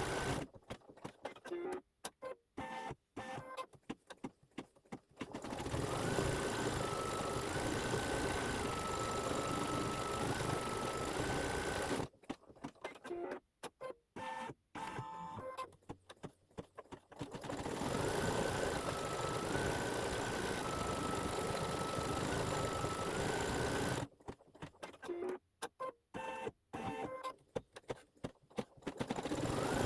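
Embroidery machine stitching, a steady running noise with a whine that steps up and down between two pitches. The sound drops out almost completely three times for a few seconds, about half a second in, around twelve seconds in and around twenty-four seconds in.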